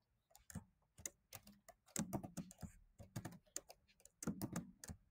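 Faint typing on a computer keyboard: quick, irregular keystrokes as a sentence is typed out, several a second, with brief pauses between bursts.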